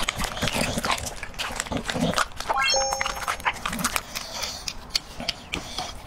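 Dog chewing raw ostrich trachea, with wet smacking and crunching of the cartilage. About two and a half seconds in, a quick rising run of short electronic tones plays.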